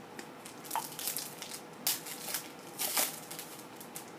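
Wrapper of a 2014 Panini Certified football card pack crinkling and crackling as it is torn open, a run of short sharp crackles, loudest about two and three seconds in.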